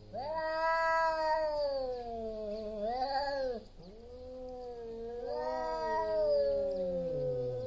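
Male tabby cats caterwauling in a territorial standoff: loud, long, wavering yowls, the threat calls of tomcats about to fight. One drawn-out yowl breaks off about three and a half seconds in, and a second long yowl follows.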